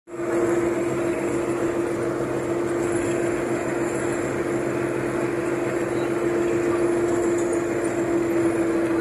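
Steady engine and road noise inside a moving bus cabin, with a constant drone running under the rumble.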